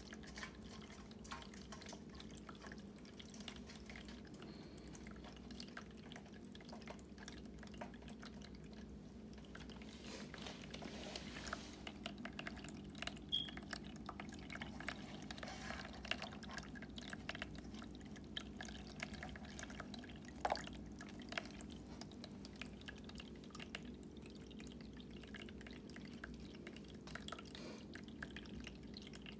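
Cat Mate pet fountain running: water trickling and dripping down its spout into the lower bowl over the steady low hum of its mains-powered pump, with small ticks throughout and one sharper tick about twenty seconds in.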